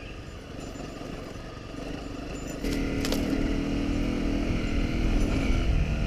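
Honda CRF250 Rally's single-cylinder four-stroke engine running while the bike is ridden along a sandy track. About two and a half seconds in the throttle opens and the engine runs markedly louder, working harder as the bike pushes into softer sand.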